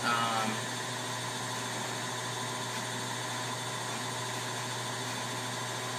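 Brother SE350 sewing machine's motor running steadily as it winds a bobbin.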